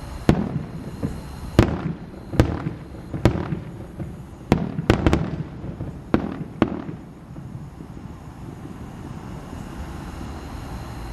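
Fireworks display: firework shells bursting in a run of about nine sharp bangs, two of them close together in quick succession, over roughly seven seconds. They then stop, leaving a steady low rumble.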